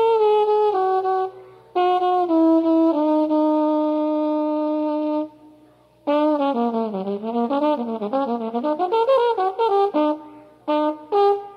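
Jazz trombone played alone, with no other instrument heard. It plays a stepwise falling phrase and a long held low note, breaks off briefly, then a fast run of notes that winds down and up again, ending in a few short notes.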